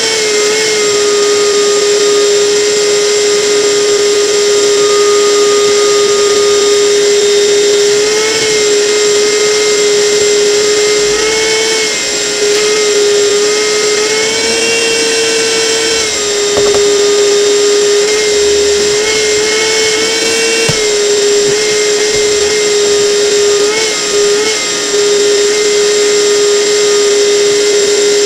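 An electric power tool's motor running steadily with a high whine, its pitch lifting slightly and settling back several times as the load on it changes.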